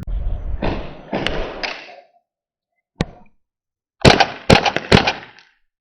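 Rustling movement noise, then airsoft gunfire: several sharp cracks in quick succession about four seconds in.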